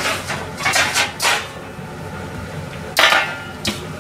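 Kitchenware knocking and clattering: a quick run of knocks in the first second and a half, then a louder clack about three seconds in as a black tray is set down on a stainless steel counter, with a smaller knock just after.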